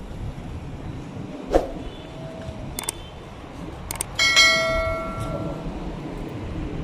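Subscribe-button sound effect: a few sharp clicks, then a bright bell ding about four seconds in that rings for about a second and fades, over a steady low background noise.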